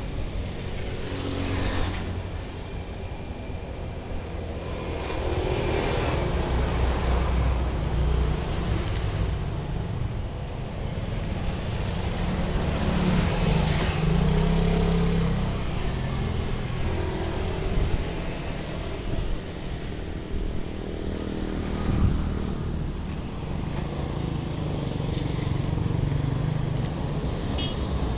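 Street traffic: motorcycles and cars passing on the road, their engines swelling and fading over a steady low rumble.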